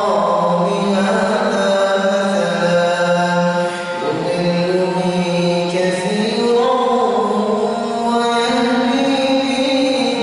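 A man's voice reciting the Quran in a slow melodic chant (tartil), drawing out long, ornamented notes that glide up and down in pitch, with brief dips about four and eight seconds in.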